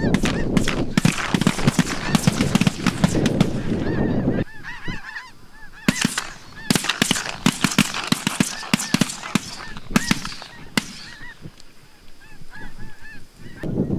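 Large flock of snow geese calling, a dense mass of overlapping high honks. It is thickest for the first four seconds or so, then thins to scattered separate calls.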